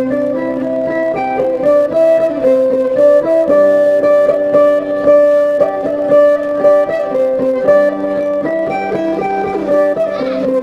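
Sape, the Dayak plucked lute, playing dance music: a quick run of plucked notes over a held lower note.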